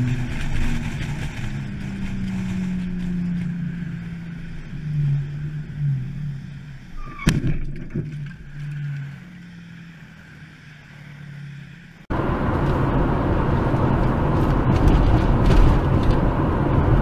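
Car driving on a highway with a steady low engine and cabin drone, broken about seven seconds in by one sharp crash as it collides with another car. After about twelve seconds the sound cuts to louder, steady road and engine noise from another car driving.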